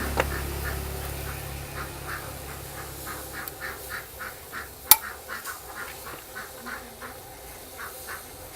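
Two sharp firework bangs, a smaller one right at the start and a much louder one about five seconds in, over a rapid run of short quacking calls, about three a second.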